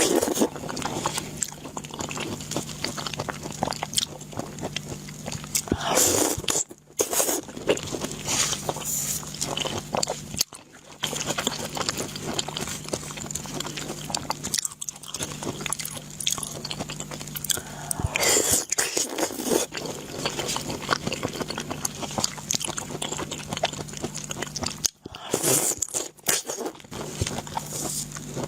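A person biting and chewing food close to the microphone, a continuous run of small crunches and wet mouth clicks with a few louder bites.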